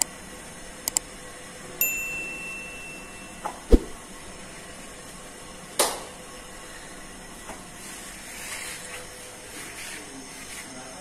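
Two quick mouse clicks and a short high chime from a subscribe-button animation, then a few scattered knocks and a sharp clack of bakery work, over a steady hiss.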